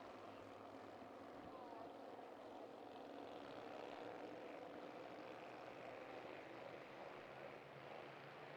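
Bandolero race cars' small single-cylinder engines heard faintly as a steady, blended drone that swells slightly a few seconds in.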